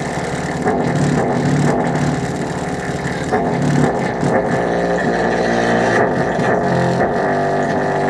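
Music played loud through a 10-inch dual voice coil subwoofer driven by a 2N3055 transistor amplifier board, with the bass turned up high. Heavy bass pulses about once a second dominate and there is little treble.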